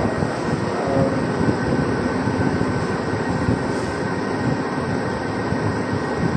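Steady, fairly loud noisy rumble with a faint thin high tone running through it, the kind made by machinery or moving air.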